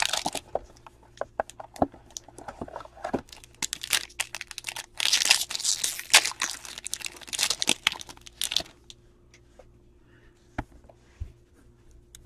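Clear plastic wrapper around a stack of trading cards being torn open and crumpled by hand, a dense run of sharp crinkles and crackles that stops about eight and a half seconds in; a few soft clicks of cards being handled follow.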